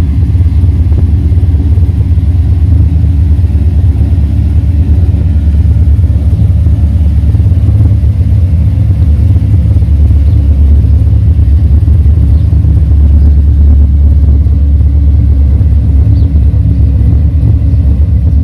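1970 Chevy C10's engine idling steadily through headers, a 2.5-inch dual exhaust with a crossover and 40 series Flowmaster mufflers, dumped before the rear axle with no tailpipes. It makes a loud, low rumble that sounds healthy.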